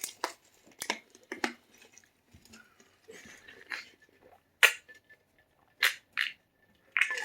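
Eating sounds: a spoon or fork clicking against a plate several times, with quiet chewing and handling between the clicks.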